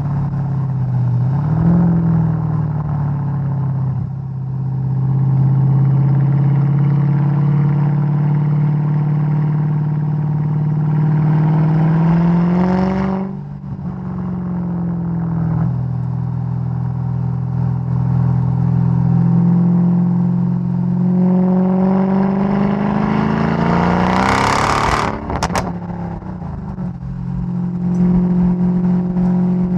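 Supercharged V8 of a Mercedes-Benz E55 AMG tuned to about 580 hp, heard from outside while driving. The engine pulls up through the revs twice, each climb ending in a sudden drop as revs fall, and about 25 seconds in the exhaust gives a short burst of sharp pops and bangs.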